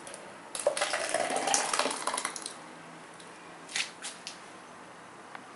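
Thick puréed tomato and garlic pouring from a plastic container into a plastic measuring jug: a wet splattering pour for about two seconds with a rising tone, then a few light taps about four seconds in.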